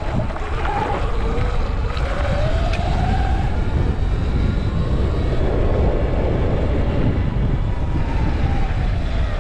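Sur Ron electric dirt bike's motor whining while riding, its pitch rising and falling with speed, under heavy wind buffeting on the microphone.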